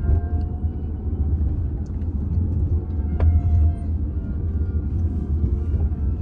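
Low, steady road and tyre rumble inside the cabin of a moving BYD electric taxi, with no engine sound to be heard, and a single sharp click about three seconds in.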